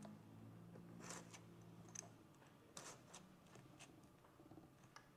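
Near silence with a few faint small clicks and rustles as hands hook a car window curtain's locks into its rail.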